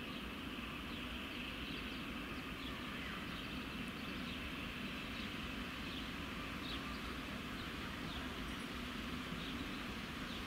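Steady, fairly quiet outdoor background with faint, scattered short bird chirps; no train sound stands out.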